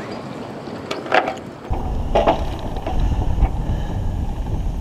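Wind buffeting the microphone at the masthead: a low rumble that sets in about two seconds in, with a few faint short knocks.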